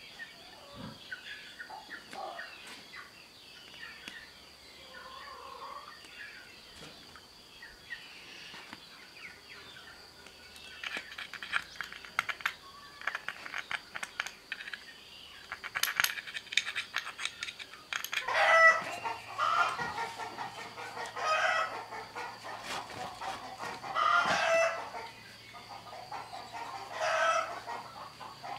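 A chicken calling over and over, one call every second or two, starting about two-thirds of the way in. Before that come light clicks and rubbing as the metal fuel-filter bowl is wiped and handled on a rag.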